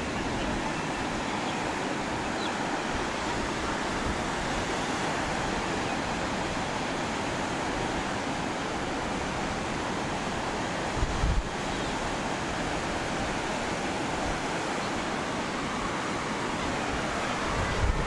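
Mediterranean surf breaking and washing up a sandy beach, a steady rushing wash of waves. About eleven seconds in, a brief low thump of wind on the microphone.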